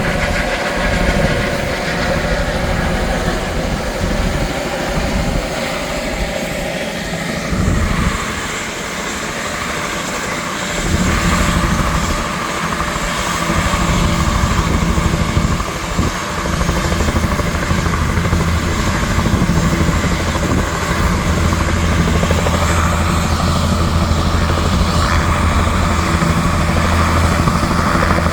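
A helicopter's turbine and rotor running, with a steady low rotor beat that becomes strong and continuous about eleven seconds in.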